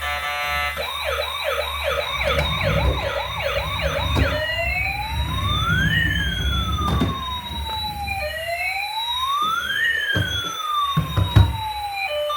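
Electronic siren of a toy emergency vehicle: a fast yelp of about three rises a second, then switching to a slow wail that rises and falls twice. A few knocks sound near the end.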